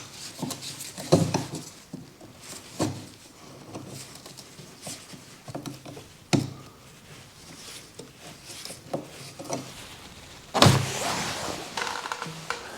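Scattered knocks and clunks of tools and car parts being handled while fuel-tank hoses are disconnected, with one louder clunk about ten and a half seconds in.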